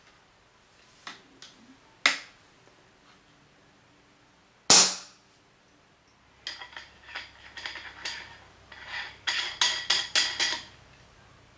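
FX Royale 200 .22 PCP air rifle, shrouded and fitted with a two-chamber add-on moderator, being fired for a sound test: a few light clicks, a sharp crack about two seconds in and a louder, muffled report nearly five seconds in. In the second half comes a long run of light metallic clicking and rattling.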